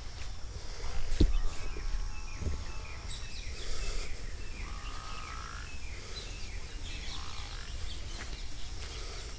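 Birds chirping and calling in short bursts, with a single sharp thump about a second in over a low steady rumble.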